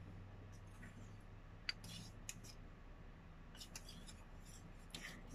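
Faint scraping and a few light clicks of a spoon stirring a thick body wash mixture in a small stainless steel cup, scattered through rather than steady.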